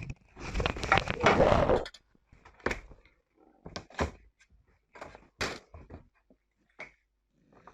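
Handling noise: a loud rustling scrape for the first two seconds, then a string of separate clicks and knocks.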